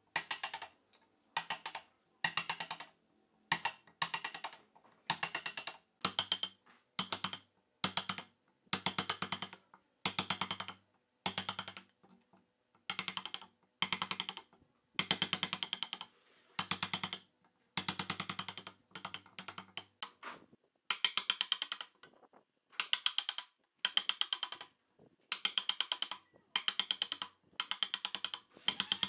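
Hand chisel splitting out softwood waste between saw kerfs in a table leg: short bursts of crackling, snapping wood fibres, about one a second.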